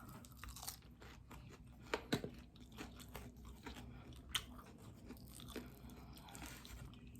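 Faint, scattered crunches and chewing of crispy air-fried chicken wings, a dozen or so soft bites and mouth sounds.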